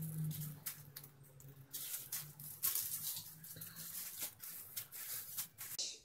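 Thin plastic bags rustling and crinkling in irregular bursts as packs of meat are picked up and moved.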